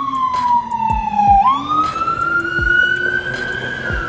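Emergency vehicle siren wailing. Its tone falls slowly, jumps back up about a second and a half in, climbs slowly again, and starts to fall near the end.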